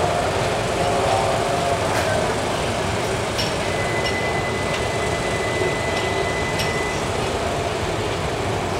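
Diesel shunting locomotive running as it slowly hauls JR East 255 series electric train cars, a steady rumble with a few sharp clicks from the wheels and couplings. A thin steady whine rises above it for a few seconds in the middle.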